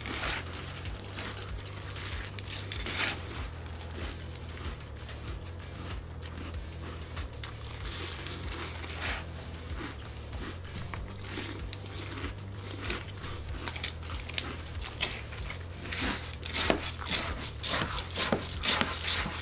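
Cap'n Crunch cereal in milk being chewed and crunched mouthful after mouthful, an irregular crackling crunch over a steady low hum. The crunching gets busier and louder over the last few seconds.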